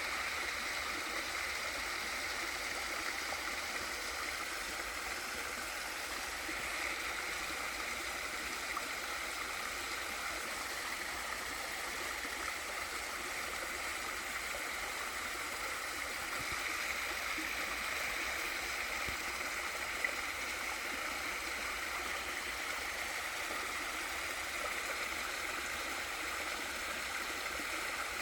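Small waterfall and valley stream: water falling and running over rocks in a steady rush, with some gurgling.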